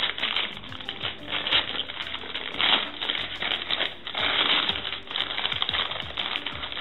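Newspaper being crumpled and unwrapped by hand, crackling in irregular bursts.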